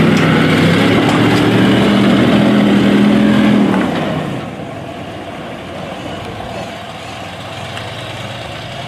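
Livestock truck's engine running as it drives slowly past close by. It falls sharply quieter about four seconds in as the truck pulls away, then stays at a steady lower level.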